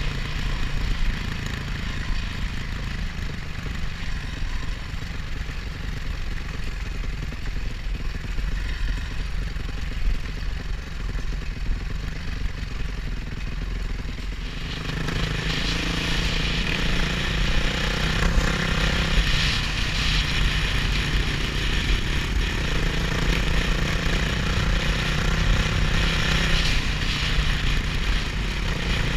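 Off-road motorcycle engine running while being ridden over rough grass, heard from the rider's helmet camera along with wind and hiss. About halfway through it gets louder and brighter, holding a steadier note.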